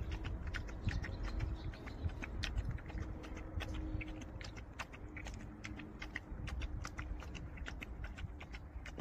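Several puppies and their mother lapping milk together from a shallow metal pan: a fast, irregular patter of small wet licking clicks, many a second.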